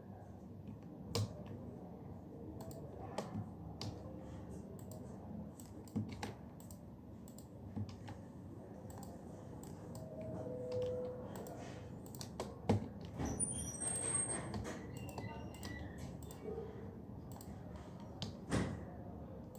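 Computer keyboard typing: scattered key clicks at an uneven pace, with a few louder presses standing out, over a steady low room hum.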